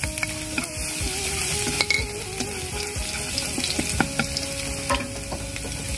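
Garlic sizzling in hot oil in a pan, with a steady frying hiss and a few sharp knocks of a utensil against the pan as it is stirred.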